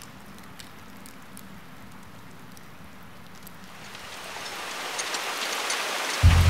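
Rain falling, faint with scattered drops at first, then swelling louder and denser over the last couple of seconds. A low sustained musical note comes in sharply near the end.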